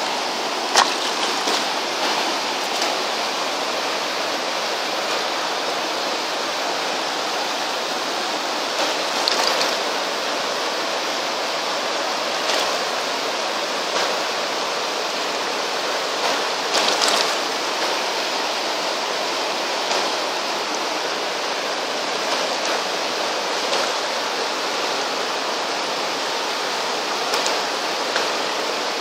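Fast mountain stream rushing over rocks and boulders, a steady, even roar of water. A few short clicks stand out, the sharpest about a second in.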